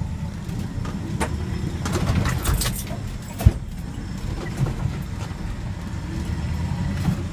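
Ford F-350's engine and exhaust, heard from inside the cab while driving, as a steady low rumble. A big semi-truck muffler keeps it so quiet the engine can barely be heard. There is a single sharp knock about halfway through.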